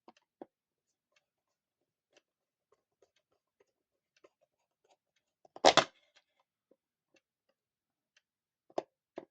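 Faint scattered clicks and small knocks from handling a Metamec wall clock while its screw is tightened back in. There is a louder clatter a little past halfway and two sharper clicks near the end.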